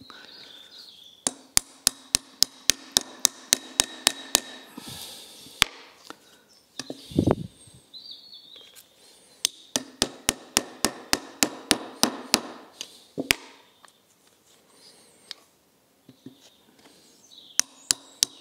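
Plastic-headed mallet tapping the throttle shaft of a Weber 40 DCOE carburettor body set on an oak block, in three runs of quick, sharp taps about four a second with pauses between; the blows are driving the stuck shaft and its bearings out. One duller, heavier knock comes about seven seconds in.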